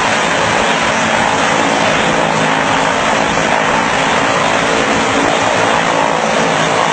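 Twin-engine turboprop plane's engines and propellers running loud and steady as it taxis.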